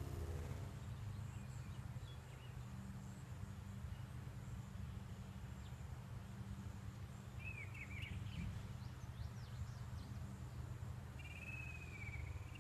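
Outdoor yard ambience under a steady low hum, with distant birds chirping: a short run of quick chirps about halfway through, and near the end a steady, wavering high trill begins.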